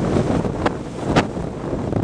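Wind buffeting the microphone over the rush of sea water breaking along the hull of a sailing schooner, with two short louder rushes near the middle.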